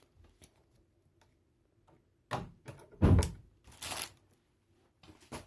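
Packaging being handled while a speedcube is taken out of its box: small ticks, then a few rustles, a dull thump about three seconds in (the loudest sound), a brief scraping hiss a second later and a click near the end.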